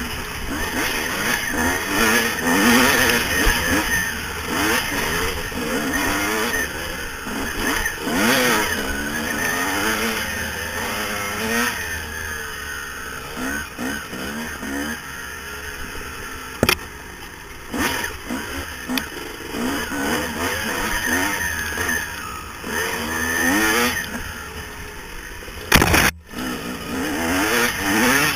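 Yamaha YZ250 two-stroke dirt bike engine revving up and falling back again and again while riding a trail. A few sharp knocks cut through it, the loudest about 26 seconds in.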